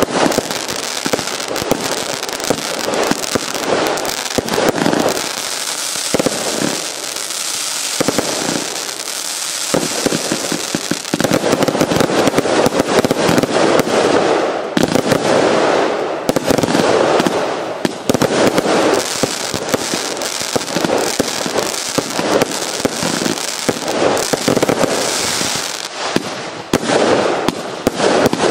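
Event Horizon firework going off in a rapid, unbroken run of shots and crackling bursts, denser and louder through the middle stretch.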